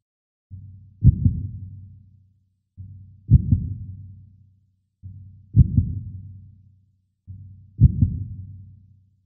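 Heartbeat sound effect: slow, deep double thumps, lub-dub, four times about every two and a quarter seconds, each fading out into silence.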